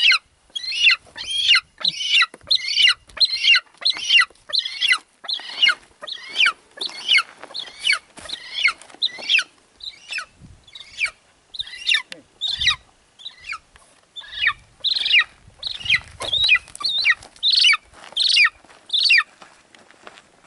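Golden eagle calling over and over, quick high yelps that drop in pitch, about two a second, stopping shortly before the end.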